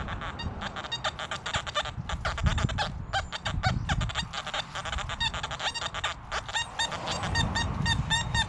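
XP Deus metal detector sounding a fast, jumbled string of short tones as the coil sweeps over ground thick with iron, settling into an even run of beeps, several a second, in the second half.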